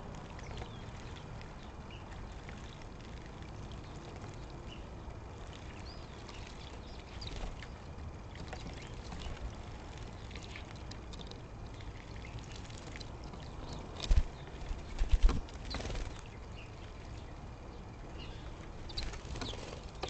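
Sparrows and a mourning dove splashing in a bucket bird bath, with light patters of water throughout. A few sudden loud thumps come about two-thirds of the way through.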